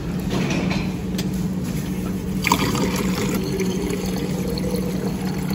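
Water from a Hoshizaki drinking-water dispenser pouring in a thin stream into a plastic PET bottle, filling it, with a steady low hum underneath.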